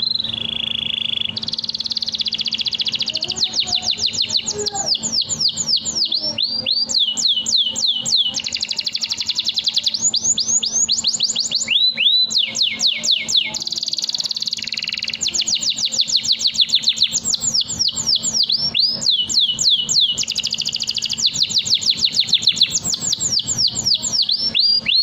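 Domestic canary singing a long, unbroken 'nembak' song. It runs in fast strings of quick falling whistled notes, about ten a second, alternating with dense rolling trills, with only a brief pause about halfway through.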